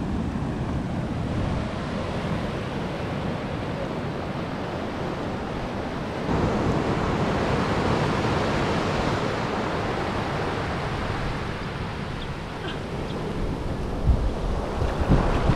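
Ocean surf washing in over the shore, a steady wash of waves, with wind buffeting the microphone. The sound steps up a little about six seconds in, and wind thumps on the microphone near the end.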